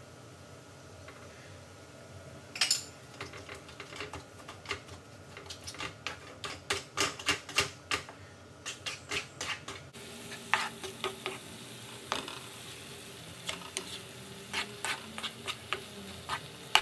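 Wooden spatula scraping and knocking in a frying pan as sausage meat is broken up and stirred with onions and peppers: irregular clicks and scrapes, a few a second, with a faint sizzle of the meat cooking.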